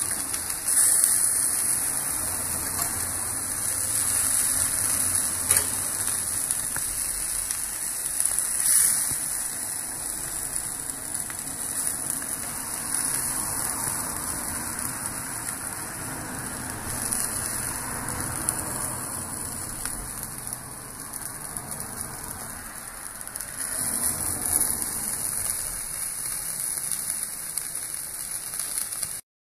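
Andouillette sausages sizzling on an indoor grill: a steady hiss of fat frying in the drip tray, with scattered spits and pops. It cuts off suddenly just before the end.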